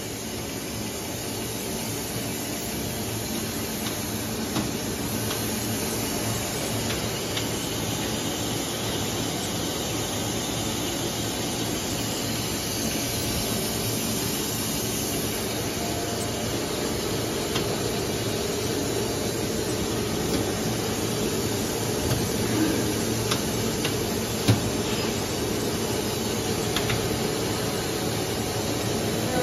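A plastic drinking-straw extrusion line running: a steady mechanical drone and hiss, with an occasional sharp click.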